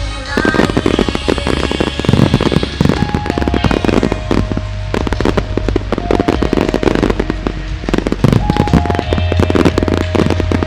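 A dense barrage of aerial fireworks, rapid overlapping bangs and crackles going off continuously, over music playing through loudspeakers with long held notes.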